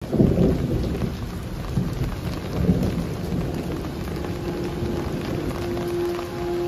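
Steady rain with a low rumble of thunder, loudest right at the start. A held musical note comes in about four seconds in.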